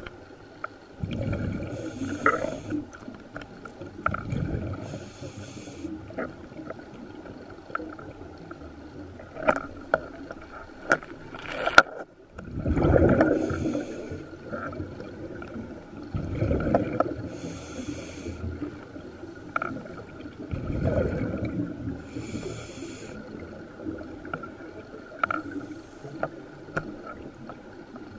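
Scuba diver breathing through a regulator underwater: a rumbling rush of exhaled bubbles comes roughly every four seconds, with shorter bands of hiss in between. There is a single sharp click about twelve seconds in.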